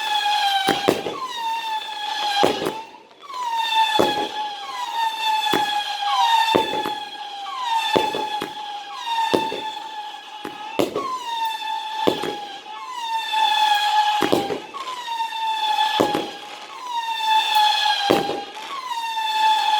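Rey Gato consumer firework going off: a near-continuous high whistle that swoops upward at the start of each note, punctuated by sharp cracks about every second or so.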